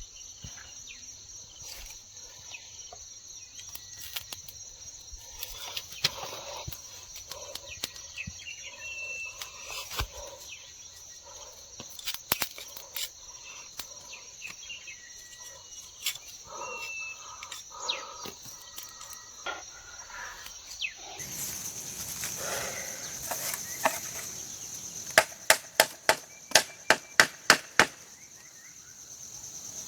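Hammer blows on copper being forged: scattered light taps, then a quick run of about nine sharp, ringing strikes near the end. A steady high insect drone runs underneath throughout.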